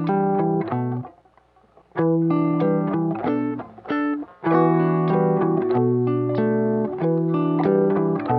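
Guitar music: a melody of plucked notes and chords ringing out, with a break of about a second near the start.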